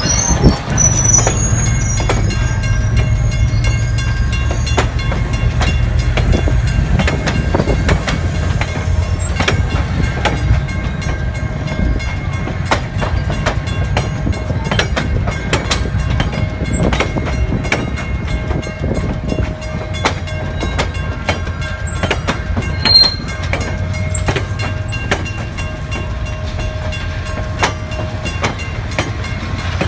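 Diesel-hauled excursion train rolling past: a low, steady locomotive engine rumble that is strongest over the first several seconds, with wheels clicking over rail joints throughout.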